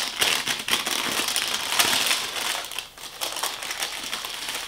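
Baking paper crinkling and crackling as it is peeled off the back of a warm génoise sponge sheet, with a brief pause about three seconds in.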